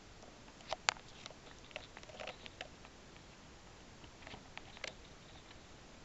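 Faint scattered clicks and rustles of handling as a handheld camera is moved about and the circuit's wire leads are handled, the sharpest click about a second in.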